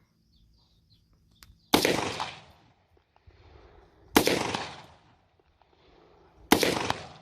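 Three single gunshots at a slow, even pace about two and a half seconds apart, each a sharp crack followed by a short echoing tail.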